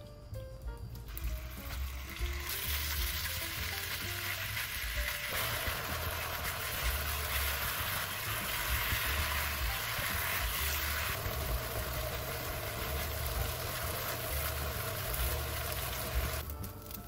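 Seasoned ground beef frying in olive oil in a wok, sizzling steadily as a wooden spoon stirs it. The sizzle starts about a second in, swells over the next few seconds, and stops shortly before the end.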